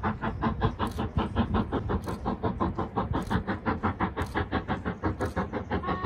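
Steam locomotive working a train, its exhaust chuffing in a rapid, even rhythm.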